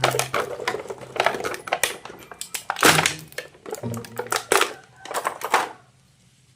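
Quick clicking and clattering of hard plastic toy parts and packaging being handled. It stops shortly before the end.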